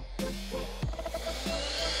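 Philips SpeedPro Aqua cordless vacuum's handheld unit running with its crevice nozzle on sofa upholstery, the suction noise growing and a thin whine rising in pitch from about a second and a half in. Background music with a drum beat plays over it.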